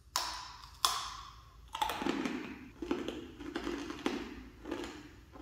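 Hard candy being bitten and crunched between the teeth close to the microphone: two sharp cracks near the start, then a run of crunching chews about every half second.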